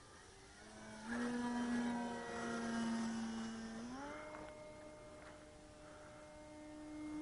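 Electric motor and propeller of a radio-controlled FLEX Innovations Cessna 170 model plane in flight: a steady whine that comes in about a second in, steps up to a higher pitch about four seconds in, and grows louder again near the end.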